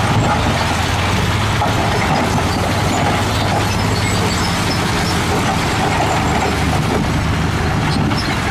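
A recorded truck-engine running sound, steady and loud, played from a toy fuel truck's built-in sound module. It starts and stops abruptly, as a button-triggered sound effect does.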